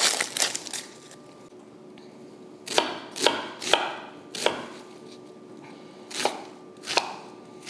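Chef's knife slicing a yellow onion on a wooden cutting board, each cut ending in a sharp knock on the board. A few cuts come in the first second, then after a pause about six more, spaced unevenly.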